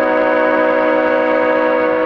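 Leslie S5T five-chime locomotive air horn sounding one long, steady chord.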